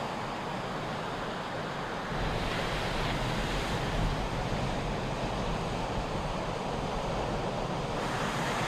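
Ocean surf washing steadily, with wind rumbling on the microphone; the low rumble grows a little louder about two seconds in.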